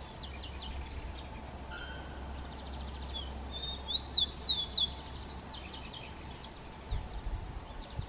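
Rufous-collared sparrow (tico-tico) singing: a few short high notes, then about four seconds in its song of two clear whistles that rise and fall, the loudest part. A low steady rumble lies underneath.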